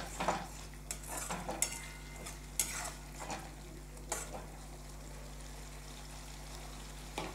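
Spatula stirring and scraping a tomato and ground-spice masala frying in oil in a metal kadai, with a light sizzle: the bhuna stage of frying the spice paste. The scraping strokes come irregularly and thin out after about four seconds, leaving the faint sizzle.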